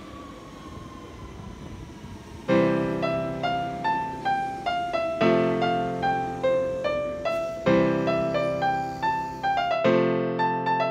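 Faint background noise with a slowly falling tone, then a solo piano melody begins about two and a half seconds in: single notes stepping over chords struck about every two and a half seconds.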